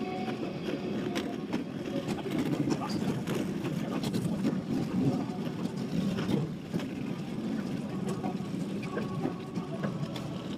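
A column of cruiser motorcycles riding past at parade pace, their engines blending into a steady, continuous low drone.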